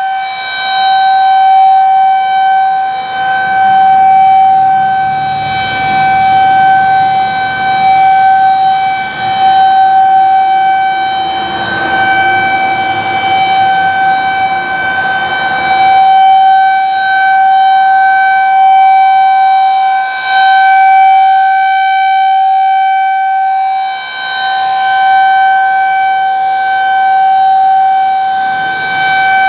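Federal Signal 2001-SRN rotating outdoor warning siren sounding a steady tone for its scheduled test. The pitch holds level while the sound swells and fades every few seconds as the rotating head sweeps past.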